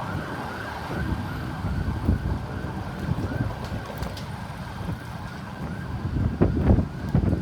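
Emergency-vehicle siren in a fast yelp, fading away within the first couple of seconds as it moves off, leaving the low rumble of road traffic and wind buffeting the microphone, with gusts near the end.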